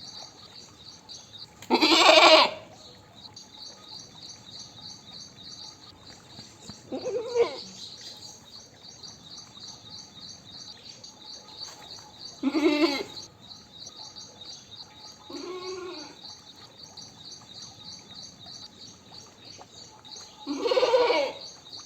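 Goat bleating five times, each call well apart; the first is the loudest. A steady, rapidly pulsing high chirping carries on underneath.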